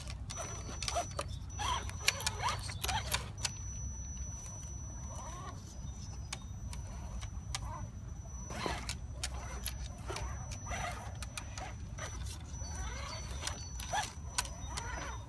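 Small electric motor of an Axial Jeep Wrangler RC rock crawler whining in short spurts that rise and fall in pitch as it crawls, with many small clicks and crackles from the tyres and chassis on dry leaves and logs.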